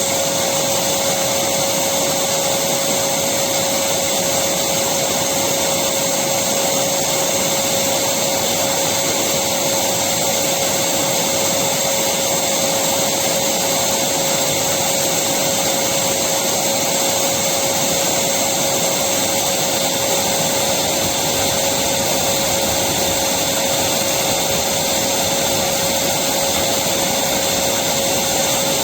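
Electric vacuum cleaner running steadily: an even rush of air with a constant hum.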